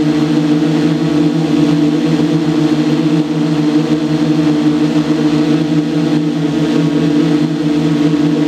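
A steady mechanical drone, like a motor running at constant speed, holding one pitch without rising or falling.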